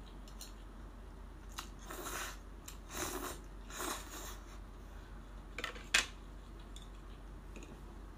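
Close-up eating sounds: a few short crunchy bites about a second apart, a sharp click about six seconds in, and some small ticks.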